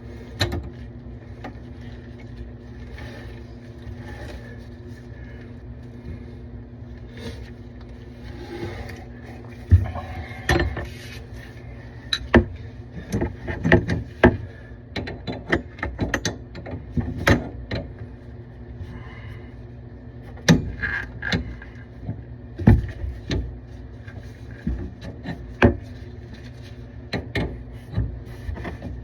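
Irregular sharp clicks and knocks of hand tools working on plumbing fittings, mostly in the second two-thirds, over a steady low hum.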